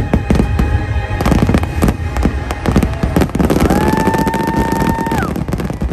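Fireworks display: a rapid barrage of shell bursts and crackling, over the show's soundtrack music.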